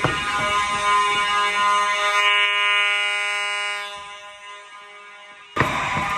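Fire alarm horns sounding continuously with a harsh, buzzy steady tone. The sound dies away about two-thirds of the way through and then cuts back in suddenly near the end.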